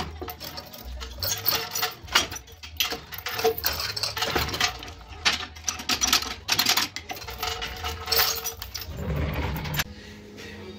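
Steel gearbox parts and tools clinking and knocking together in irregular handling noises, as a ZF 16S181 truck gearbox is worked on and reassembled by hand, over a low steady hum.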